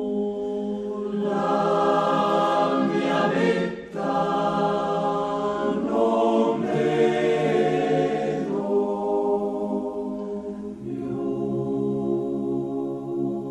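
Italian alpine male-voice choir singing a cappella in held, slow chords. It swells louder twice with a short break between, then settles into a softer sustained chord with a deep bass line near the end.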